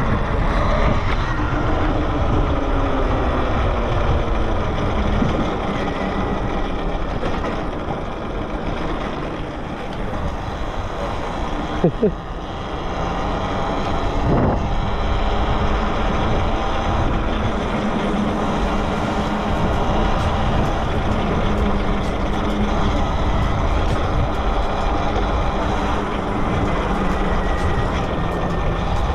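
Electric motor of a Talaria Sting R electric dirt bike whining under way, with heavy wind and road noise. The motor pitch slides down over the first few seconds as the bike slows, then drifts with speed. A brief sharp squeak stands out about twelve seconds in.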